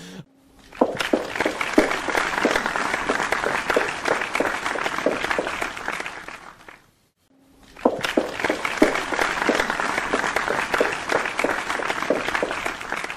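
Crowd applause in two bursts, each about six seconds long and fading out, with a second of silence between them.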